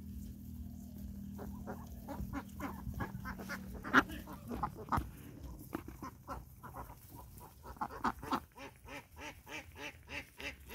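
Indian Runner ducks quacking in many short calls, sparse at first, then coming thick and fast from about eight seconds in.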